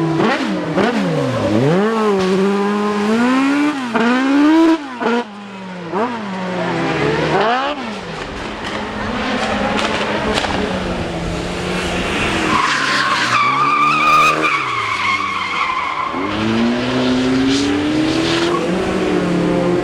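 Rally car engine revving hard, its pitch climbing and dropping quickly again and again as the driver works the throttle and gears, with a long tyre squeal of about three seconds about two thirds of the way through as the car drifts.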